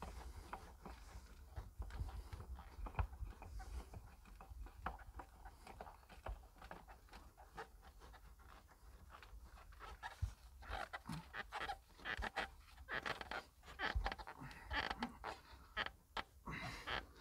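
Heavy breathing close to the microphone, with scattered light clicks and knocks of hands working on fuel-system parts of an excavator's diesel engine; the breaths come thicker and louder in the second half.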